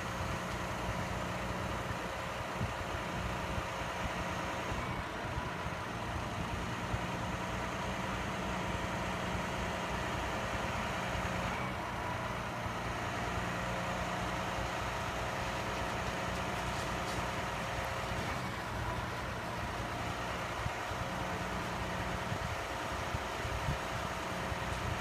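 Heavy diesel engine of a truck-mounted concrete pump running steadily during a concrete pour, its tone shifting slightly a few times.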